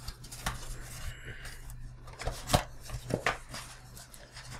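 A cardboard box insert being handled and folded apart by hand: scattered light taps, knocks and scrapes of cardboard, with a brief rustle about a second in.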